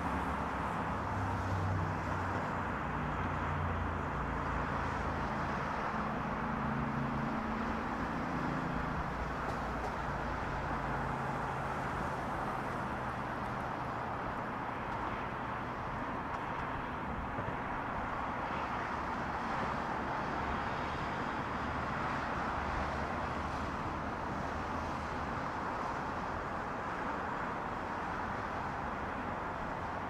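Steady hiss of distant highway traffic, tyres on the road, with a low engine hum that fades out about nine seconds in.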